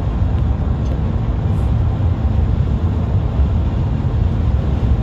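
Steady low rumble of tyre and road noise with wind, heard from inside a moving car.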